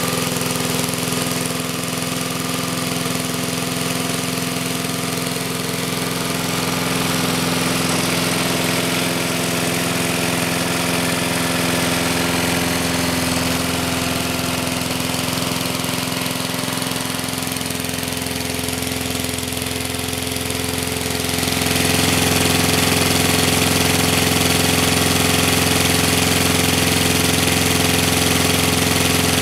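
4 HP Briggs & Stratton single-cylinder engine on a walk-behind lawn mower running steadily just after starting, with a constant pitch. It gets louder about three-quarters of the way through. The engine runs smoothly after a carburetor diaphragm, primer bulb and spark plug replacement.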